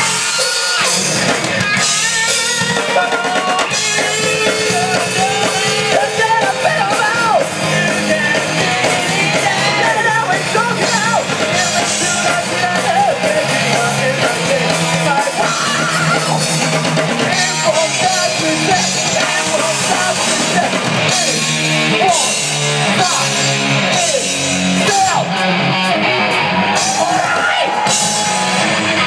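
Live rock band playing loud: electric guitars and a drum kit, with a lead vocalist singing over them.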